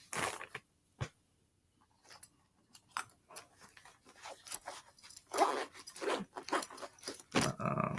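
Rustling, clicks and knocks of gear being handled and packed into a bag's pouch. They are sparse at first and busier from about five seconds in. A short low voice-like sound comes near the end.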